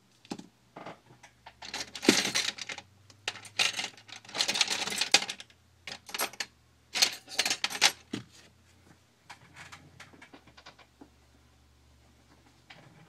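A pry tool clicking and scraping against an iPhone 4's frame and screen as the screen's glue cracks loose, in several bursts of rapid crackling clicks, loudest about two and five seconds in and fainter near the end.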